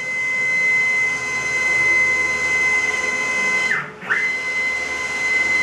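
Homemade CNC router's stepper motors whining, a steady high-pitched tone while the gantry traverses rapidly at about 300 inches per minute. About four seconds in the whine falls in pitch, stops briefly and climbs back up as the axis slows, reverses and speeds up again.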